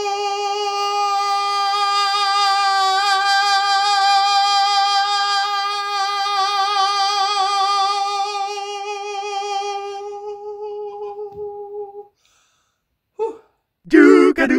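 A man sings one long held note in a high head voice with vibrato, shifting into interior vocal edge: the tone grows brighter and sharper a few seconds in. The note stops about 12 seconds in, and short bursts of sound follow near the end.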